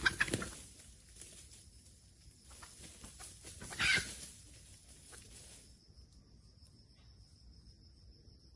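Red junglefowl at a trap, with bursts of scuffling and flapping at the start and a louder burst about four seconds in. From about six seconds a steady high insect buzz carries on alone.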